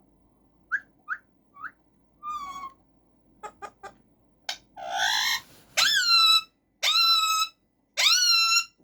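Male Alexandrine parakeet vocalising in its cage: a few short chirps, some sharp clicks and a harsher call, then three long, loud calls about a second apart near the end, each rising at the start and then holding steady.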